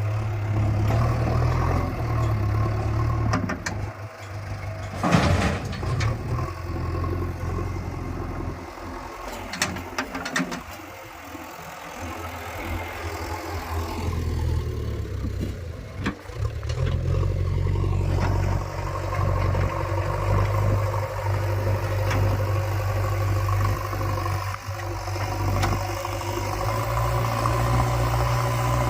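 Diesel engine of a JCB 3DX backhoe loader running steadily while it digs and loads soil, its level rising and falling with the load. A loud sharp clank about five seconds in and a few lighter knocks around ten seconds.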